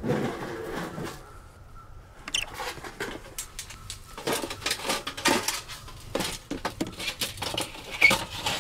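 Irregular knocks, clicks and scraping of flat metal pieces being slid and fitted into a truck camper's outside storage compartment.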